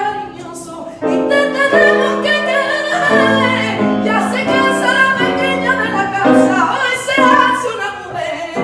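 A woman singing a sevillana over instrumental accompaniment, the melody rising and falling in long held phrases. The accompaniment comes in fuller about a second in.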